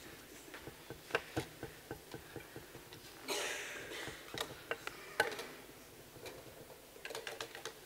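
Irregular light clicks and knocks, with a short rustle about three seconds in: handling noise as a laptop is set up at a lectern.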